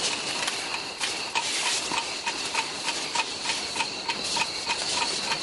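Animal chorus: a steady high trill with a short chirp that repeats about three times a second.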